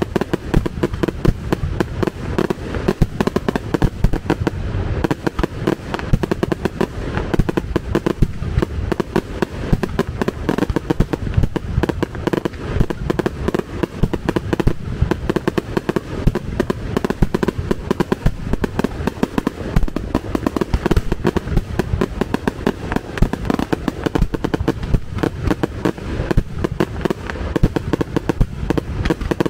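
Fireworks barrage: a dense, unbroken stream of rapid bangs and crackling, loud throughout with no let-up.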